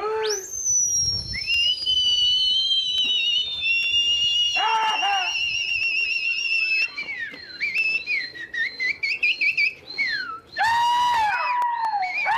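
Loud human whistling to a circling pigeon flock, the kind pigeon flyers use to keep the birds in the air. Long, piercing whistles start high and glide slowly down, some held with a warble, then give way to a quick run of short rising and falling whistles. Lower pitched calls break in briefly about five seconds in and again near the end.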